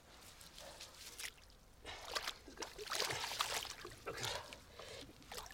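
Water sloshing and splashing in a shallow bog pool as hands reach and dig into it, in irregular bursts that grow busier about two seconds in.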